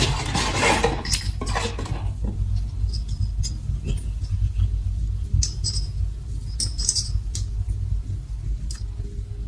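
Rustling for about two seconds, then scattered small clicks and taps of hand-handled parts, over a steady low rumble.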